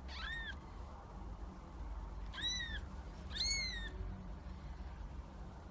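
Newborn kitten mewing three times, short thin high-pitched mews that each rise and fall, over a low steady hum.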